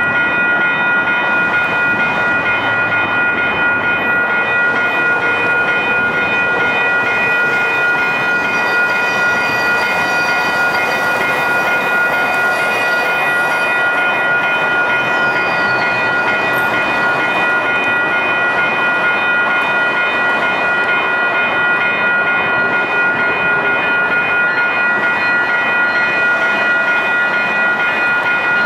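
WCH Type 4 electronic crossing bell ringing steadily, the warning of an active grade-crossing activation with lights flashing and gates down. Midway through, a faint rumble and a brief high squeal from a light rail train passing on the bridge behind.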